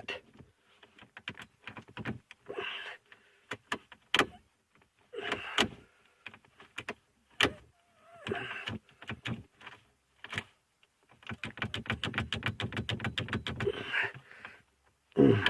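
Scattered clicks and clunks of a key being turned and worked in a car's ignition lock cylinder, which will not shut off fully or release the key. Near the end comes about three seconds of rapid, even clicking.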